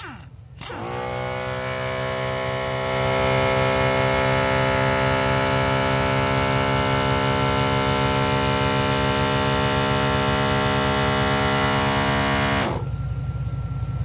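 MaxiTrac 300 LPM 12-volt portable air compressor starting up, its pitch rising for a moment, then running steadily under load as it pumps an air tank from 90 to 120 psi. It shuts off abruptly near the end, about twelve seconds after starting, leaving a low steady hum.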